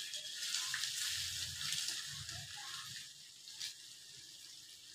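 Rat meat marinated in salt, lemongrass and chili sizzling as it fries in an open pot. The sizzle eases off after about three seconds, and there is a single click about three and a half seconds in.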